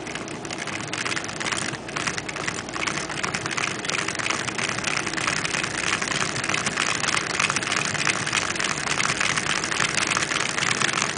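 Hand-cranked Lego model single-cylinder engine: its plastic gears, crank and piston clatter in a fast, dense rattle. The rattle builds over the first couple of seconds, then runs on steadily.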